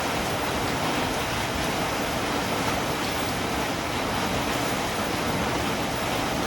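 Steady, even rain falling, a constant hiss without breaks or single drops standing out.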